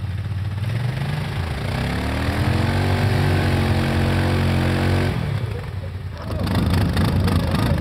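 ATV engine revving up about a second and a half in and held at high revs for a few seconds as the quad strains in deep mud on a tow line, then dropping off; near the end a louder, rough, noisy sound takes over.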